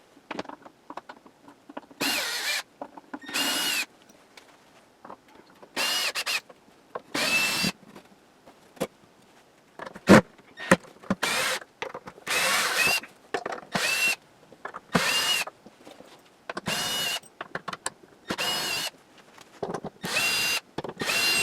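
A power drill backs screws out of a wooden shipping crate in short whirring runs of half a second to a second each, about ten in all. Light clicks and handling noise fall between the runs, and there is one sharp knock about ten seconds in.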